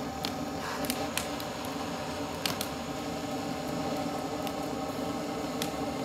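Wood-fired brass samovar heating up: a steady hum of several held tones over a rushing bed, with scattered sharp crackles and clicks.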